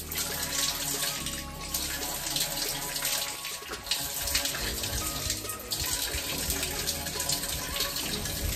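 Shower running steadily, water spraying onto hair and a concrete wall as locs are rinsed under the stream.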